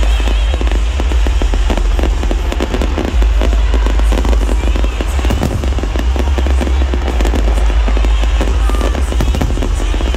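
Aerial firework shells bursting in a rapid, unbroken barrage of bangs and crackles, with show music playing underneath.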